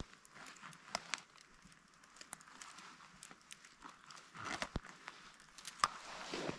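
Leaves and twigs of a berry bush rustling, with scattered small clicks and snaps, as berries are picked by hand.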